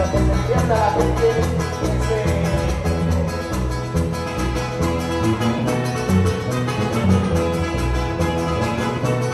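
Loud Latin dance music with a steady beat and a bass line, playing without a break.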